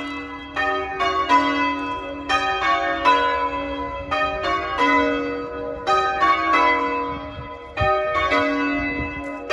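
A ring of three church bells, the tenor about 6 cwt and tuned to B, rung full circle in English change-ringing style. The bells strike one after another in a steady, even succession, each stroke ringing on into the next, heard from outside the tower.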